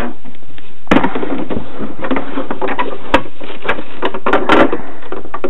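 Handling noise: a run of clicks and knocks from the plastic parts of an RC boat and its battery being handled, with a sharper knock about a second in and another near three seconds.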